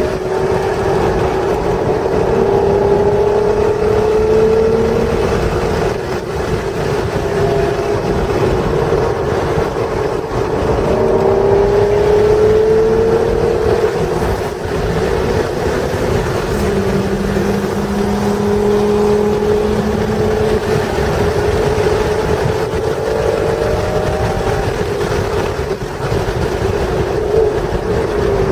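A 1996 Acura NSX's stock 3.0-litre V6 is run hard on a race track. Its engine note rises in pitch again and again as it pulls through the revs, and drops back briefly a few times for shifts or lifts. Road and wind noise run steadily underneath.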